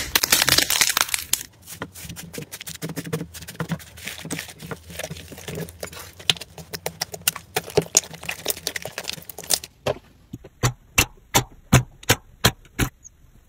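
Slime being squeezed and pressed, crackling and crunching densely, loudest in the first second or so. About ten seconds in it gives way to a run of separate sharp pops, about three a second.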